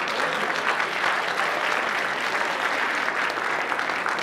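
Audience applauding, steady and loud.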